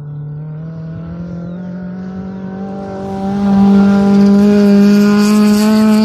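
Rally car engine at full throttle, its pitch climbing steadily as the car accelerates. It becomes much louder about three seconds in as the car passes close, with a hiss of gravel from the tyres near the end.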